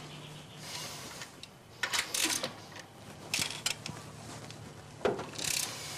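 Ratchet socket wrench clicking in three short bursts, about two, three and a half and five seconds in, as the rocker arm adjusting nuts are turned to preload the hydraulic lifters.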